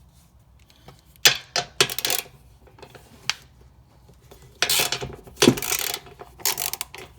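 Ratchet and socket loosening bolts on a Ford Bronco's rear bumper: short, irregular bursts of metallic clicking and clinking, with a few sharp clanks of metal on metal.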